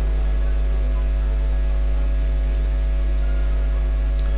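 Steady, loud low electrical mains hum, a deep even buzz, with a faint tick near the end.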